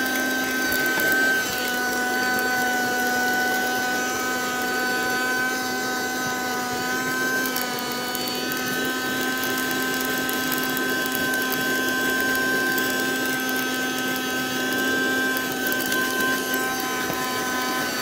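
Sakura 12V handheld car vacuum cleaner running steadily with a motor whine, its crevice nozzle sucking over car carpet. The pitch sags briefly about halfway through.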